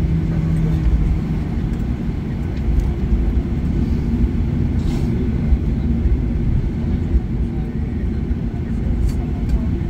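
Inside an airliner cabin during taxi: the jet engines hum at idle over a steady low rumble from the aircraft rolling along the taxiway.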